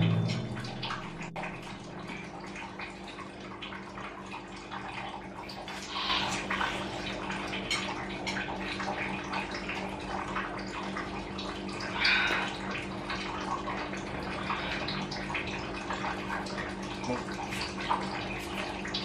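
Wet, irregular slurping and chewing of instant noodles by several people eating from bowls, over a steady low hum.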